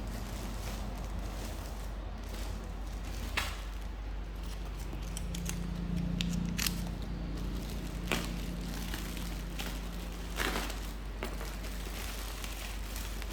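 Hands handling a phone box and its packaging: scattered clicks, crinkles and scrapes over a steady low hum.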